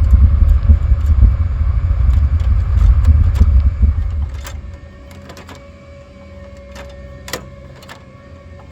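A loud low rumble fades out about four and a half seconds in. After it come a faint steady hum and scattered light clicks.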